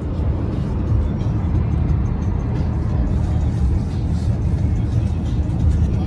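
Steady low rumble of a car on the road, heard from inside the cabin, with music playing over it.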